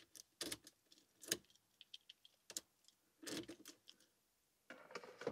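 Scattered light clicks and a faint rattle as the immobiliser plug and ignition key are handled at a MK2 Golf's steering column. The engine is not being cranked.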